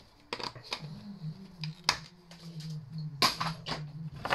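Electrical cables being pulled from a tangled pile and handled with pliers: scattered clicks and knocks of plugs, cable and metal tool, the sharpest about two seconds in and just after three seconds, over a faint low hum.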